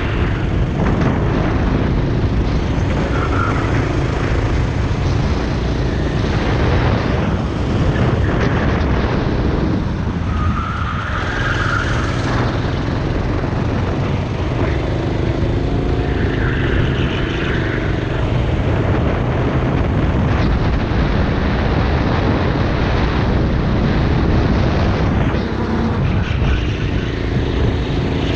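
Racing kart engine running hard at race pace, heard from the onboard camera. Its note shifts up and down through the corners, with wind rushing over the microphone.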